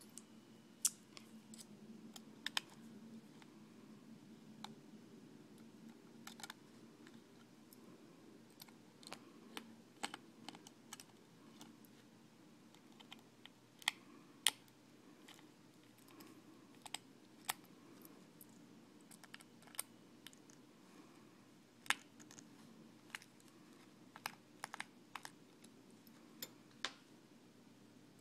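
Irregular small, sharp metallic clicks of a precision screwdriver and pliers working the tiny screws that hold a Flip Mino HD camera's circuit board, over a faint steady low hum.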